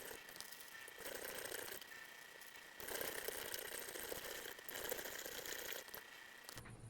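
Weston No. 32 meat grinder running and grinding meat, a steady mechanical whir with a thin high whine that swells about once a second. Its new blade is not yet worn in to the plate and needs honing.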